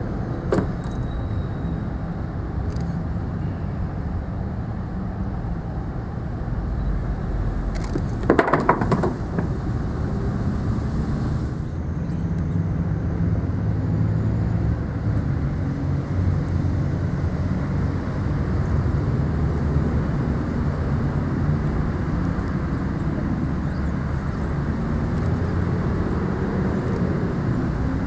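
A steady low rumble, with a sharp knock about half a second in and a brief burst of louder clattering around eight to nine seconds in.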